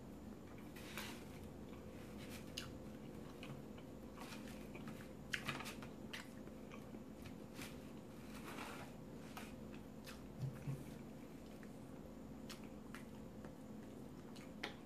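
Quiet chewing of omelette close to the microphone, with scattered soft mouth clicks and smacks. A faint steady hum runs underneath.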